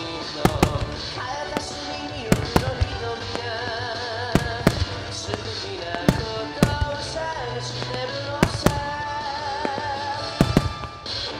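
Starmine firework shells by Marutamaya Ogatsu bursting in sharp bangs, often two in quick succession, about a dozen in all, over music playing along with the show.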